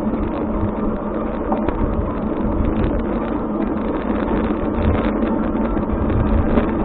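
Steady road-vehicle noise, a low rumble with no sudden events, typical of a car driving.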